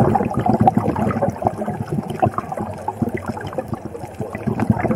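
Muffled underwater crackling and bubbling, as heard through an action camera's waterproof housing while scuba diving. It is louder at first and eases off for a moment near the end.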